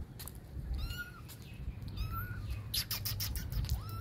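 Young kittens mewing: three short, high-pitched mews, about a second in, about a second later, and a rising one at the very end. A quick run of sharp clicks comes a little before the end.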